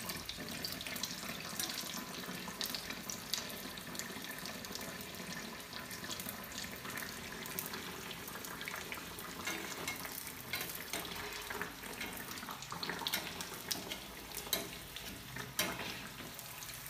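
Hot oil sizzling and crackling steadily as a potato nest deep-fries in a steel kadhai, with a few sharper clicks near the end.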